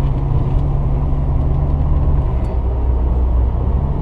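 Car interior noise while driving: a steady low engine and road rumble, the drone shifting in pitch a little past halfway.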